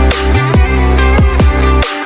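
Background electronic music with heavy bass and several quick falling bass slides.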